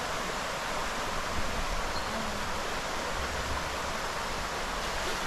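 River water flowing: a steady, even wash of water noise with no breaks.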